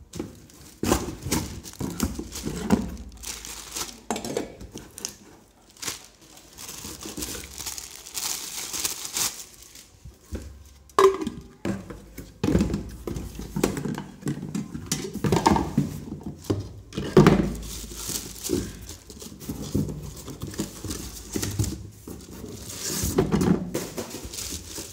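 Unboxing handling noise: stainless steel mixer-grinder jars and lids knocking and scraping against each other and the cardboard box, with rustling of cardboard and plastic wrapping. A few sharper knocks stand out, the loudest about 11 and 17 seconds in.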